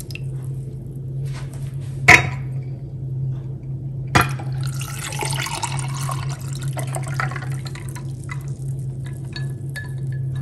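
Tamarind ginger juice poured into a glass, with two sharp glass clinks, about two and four seconds in, before the pouring. A steady low hum runs underneath.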